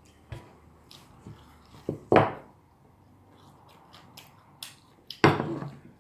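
Dinner-table clatter: small clicks of cutlery on dishes, with two louder, short bursts about two and five seconds in.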